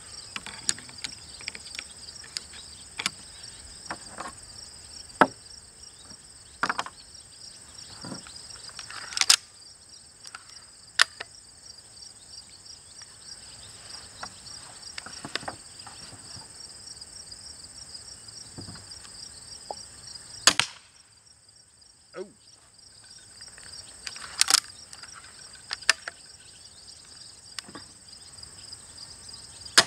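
Crossbow being handled and shot: scattered clicks and snaps, and a few loud sharp cracks of shots and bolts striking a carbon fiber plate, the loudest right at the end. Crickets and other insects trill steadily behind.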